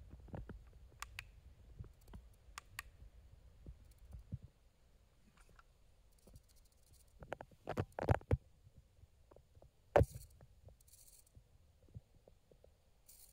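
Scattered small clicks and knocks, with a quick cluster of louder knocks about eight seconds in and one sharp click about ten seconds in, plus a few brief bursts of faint hiss.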